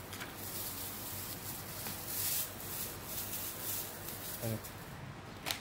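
Thin plastic carrier bag rustling and crinkling in several handling swells as fried snacks are pulled out of it.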